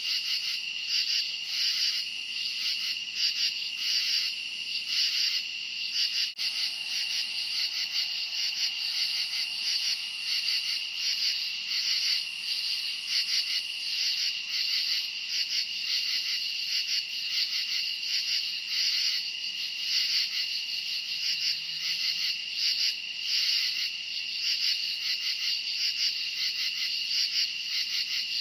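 Night chorus of crickets chirping, a dense high-pitched trill that pulses in a steady rhythm throughout.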